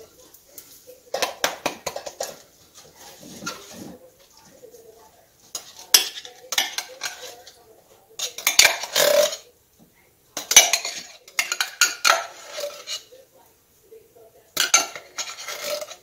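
A metal spoon scraping and clinking against a tin can and a stainless steel saucepan as canned diced potatoes are spooned out of the can into the pot. The clatter comes in several short, irregular bursts with brief pauses between.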